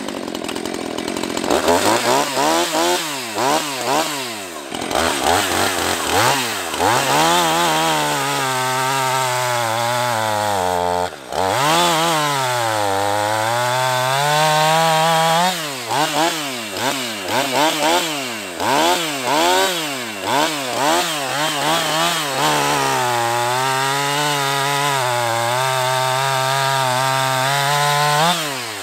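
Husqvarna 450e Rancher 50cc two-stroke chainsaw cutting through a felled log, its engine revving up and sagging in pitch again and again as the chain bites, with steadier stretches held at full throttle in the cut and a brief lull about eleven seconds in.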